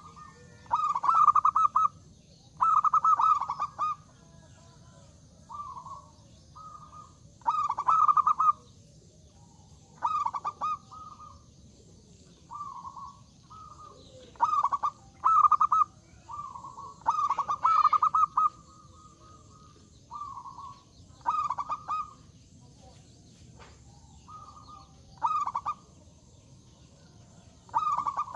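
Zebra dove (perkutut) cooing over and over in a trilled, rolling voice, one short phrase every second or two, some phrases loud and some softer.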